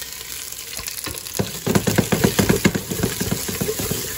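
Onion chunks sizzling in hot olive oil in a stainless steel pot on high heat. From about a second and a half in to past three seconds, a run of quick knocks and scrapes as the onions are stirred in the pot.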